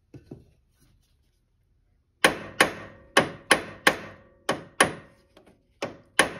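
Hammer striking a metal punch to drive a pin into its hole on an ATV's front CV axle: a few light taps, then from about two seconds in a run of about nine sharp metallic blows, each with a short ring.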